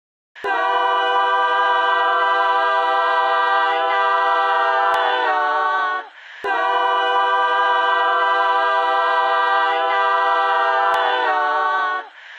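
Several voices singing a cappella: a long held chord that moves to a new chord near its end, then the same phrase again after a short breath about six seconds in.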